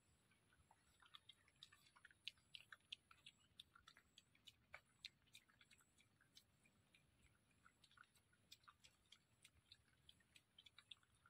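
Faint, irregular clicks and crunches, several a second, of a wild boar piglet chewing and nosing green leaves.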